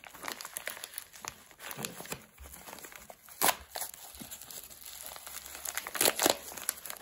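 Small padded paper envelope crinkling and crackling as gloved hands pull it open, with louder sharp crackles about three and a half seconds in and again about six seconds in.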